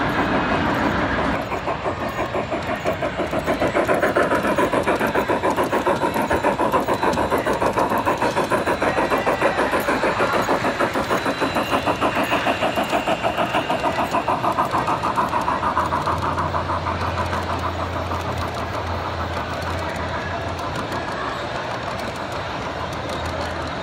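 Model steam locomotive chuffing in a fast, even rhythm as it runs along the layout's track, weakening in the last third while a low steady hum comes in.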